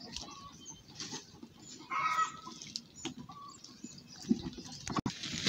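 A chicken clucking a few short times, the loudest call about two seconds in, with a sharp knock near the end.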